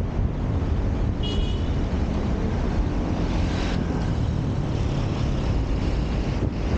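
City road traffic heard from a moving car: a steady low rumble of road and wind noise on the camera microphone. A brief high-pitched tone sounds about a second in.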